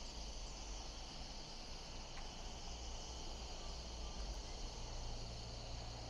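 Faint, steady insect drone, crickets or similar, with a low rumble underneath.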